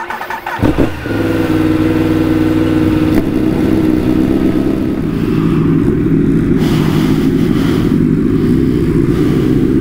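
Motorcycle engine running under way: it picks up about a second in, then holds a steady, even note.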